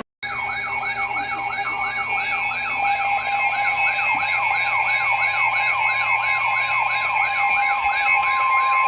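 Electronic alert siren sweeping rapidly up and down in pitch, several sweeps a second, over steady higher warbling tones. It starts abruptly, and a steady single alarm tone joins near the end.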